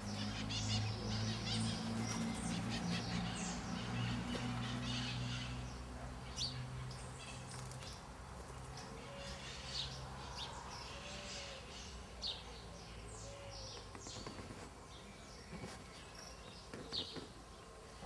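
Several wild birds chirping and calling in short, high notes, with a few softer low calls near the middle. A steady low hum underlies the first half and fades out partway through.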